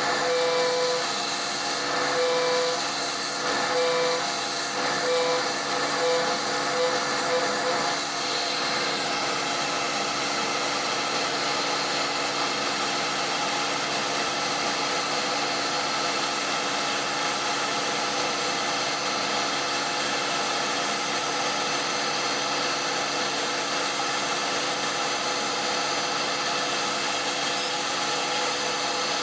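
CNC router spindle at 10,000 rpm milling a pocket with a three-flute bit. For the first several seconds a tone comes and goes about once a second as the cutter bites in and out. After that comes a steady cutting and machine noise.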